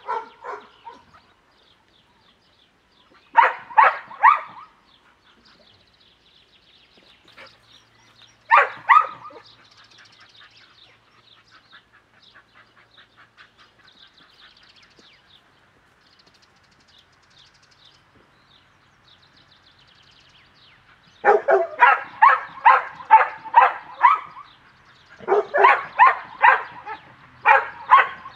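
Cimarron Uruguayo dog barking in short clusters: a few quick barks early on, two more a few seconds later, then after a long pause two volleys of rapid, repeated barks near the end.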